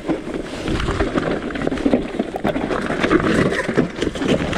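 Mountain bike clattering down a rocky trail, tyres and frame rattling over loose stone with many sharp knocks, as the rider loses control and goes down near the end.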